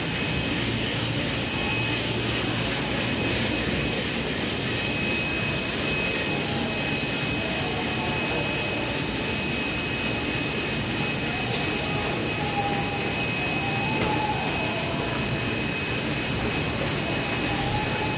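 Steady rushing drone of a large warehouse's industrial fans and machinery, with a faint steady high whine on top.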